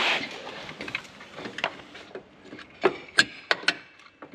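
Scattered light clicks and knocks of metal parts and tools being handled while a drive-by-wire throttle pedal bracket is test-fitted, with a brief rush of noise at the start. The sharpest knocks come about three seconds in.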